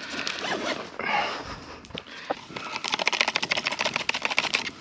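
Rustling and clicking of packaging and a small container being handled, turning about halfway through into a quick run of rapid clicks, about ten a second.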